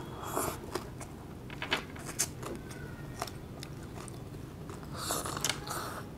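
Close-up eating sounds: chewing and crunching raw vegetables, an irregular run of crisp crunches.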